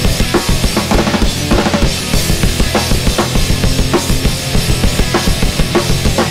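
Hardcore punk band playing an instrumental passage without vocals: a hard-hit drum kit driving a fast beat under the full band.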